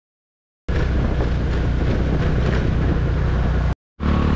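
Motorcycle engine running, with wind noise on the microphone. It starts abruptly just under a second in and drops out for a moment near the end, then resumes.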